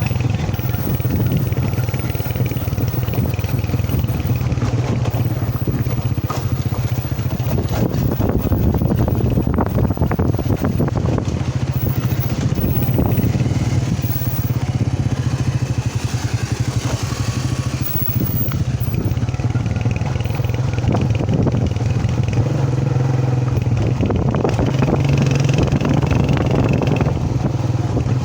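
A motor vehicle's engine running steadily while on the move, with continual rattling and knocks from a rough ride.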